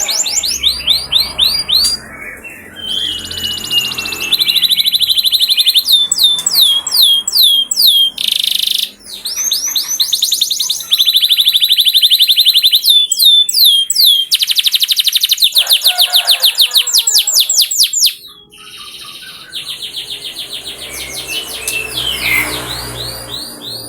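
Domestic canary singing, a long song of fast, high-pitched trills: each phrase is a rapid run of repeated notes, switching to a new phrase every second or two, with a quieter stretch near the end.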